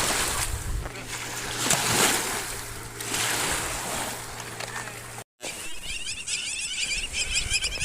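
Small lake waves washing and splashing at the water's edge in repeated surges, over a steady low hum. After a sudden cut about five seconds in, quieter sound with rapid high chirping.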